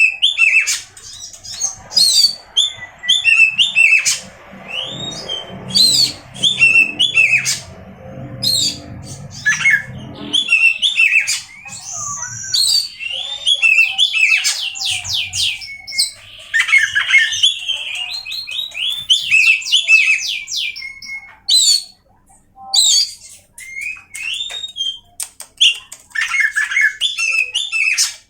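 Oriental magpie-robin (kacer) singing a long, varied song of quick whistled notes and chirps, with a stretch of rapidly repeated sweeping notes in the middle.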